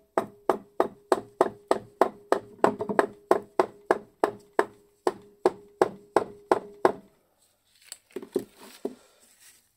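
About twenty quick, even mallet blows, roughly three a second, on a large electric motor, each leaving a short metallic ring in the housing; they drive the rotor out of the stator. The blows stop about seven seconds in, and a few lighter knocks follow.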